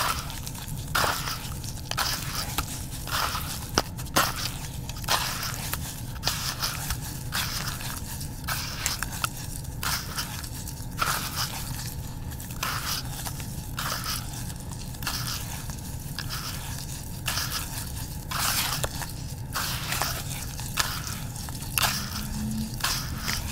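Hands kneading and squeezing a wet, gritty paste of crushed brick, charcoal and red dirt. The squishing and crunching comes in irregular strokes, about one or two a second.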